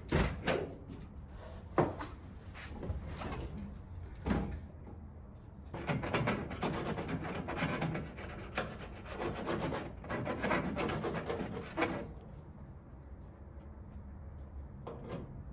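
Burrs being filed off a freshly drilled hole in metal by hand: a few separate scraping strokes, then a run of quick rasping strokes from about six to twelve seconds in, easing to lighter rubbing near the end.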